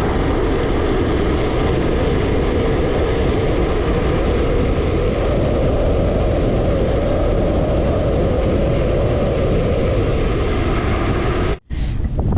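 Loud, steady wind rushing over the camera microphone of a cyclist riding a gravel bike at speed.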